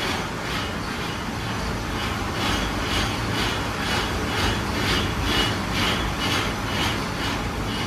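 Belt-driven lathe running, with a steady rhythmic clack about two to three times a second over a low machine rumble.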